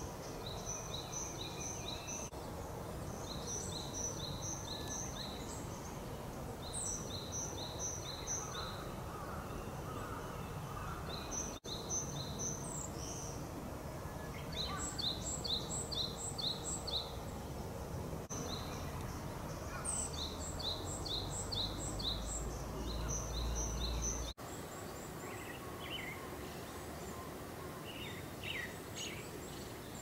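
Pale thrush giving its rattling 'jiriri' call: quick runs of four or five short, high notes, repeated every few seconds over a steady background hiss. About three-quarters through, the calls give way to fainter, scattered lower chirps.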